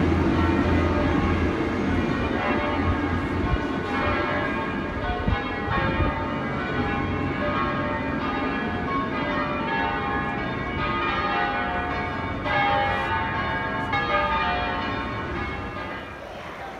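Church bells ringing, several bells sounding in overlapping peals, fading near the end. A low vehicle engine hum sits under them in the first couple of seconds.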